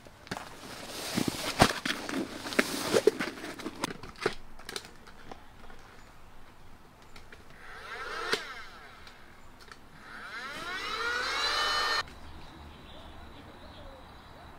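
Nylon sleeping bag and tent floor crinkling and rustling under a hand, with many small clicks and crackles. Later comes a hiss whose pitch sweeps upward, then stops abruptly.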